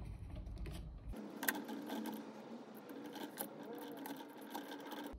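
Small screws being turned back into the metal hotend cover plate of an Ender 3 V2 3D printer with a thin hand tool: a quick run of light clicks and scrapes of metal on metal, with one sharper click about a second and a half in and a low handling bump in the first second.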